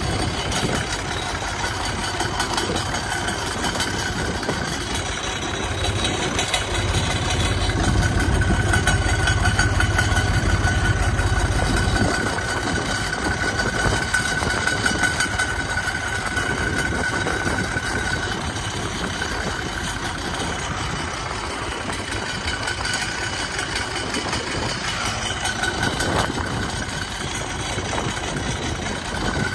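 Massey Ferguson 135 tractor's three-cylinder Perkins diesel running steadily under way, heard from the driver's seat. It grows louder and heavier for a few seconds about a quarter of the way in, and a steady high tone sits over it through the middle stretch.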